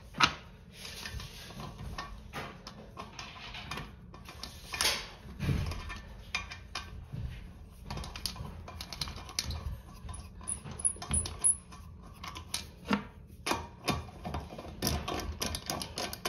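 Irregular small clicks, clinks and scrapes of a metal nut and plastic bolt-cap base being fitted onto a toilet's brass closet bolt against the porcelain bowl base. Near the end a nut driver turns the nut, snugging it only loosely.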